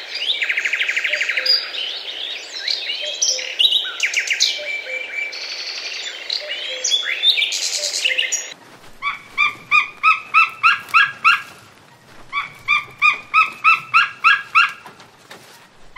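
Birds chirping and trilling in a busy mix of song. About eight and a half seconds in, this gives way to one bird repeating a short call about three times a second, in two runs with a brief pause between.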